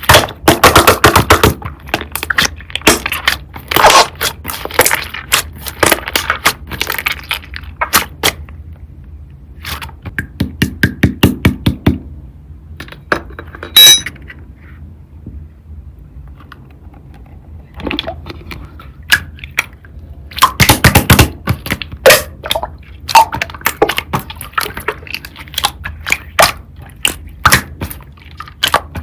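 Slime being pressed, poked and stretched by hand, giving irregular clicks and crackling pops, with a quieter pause about halfway through.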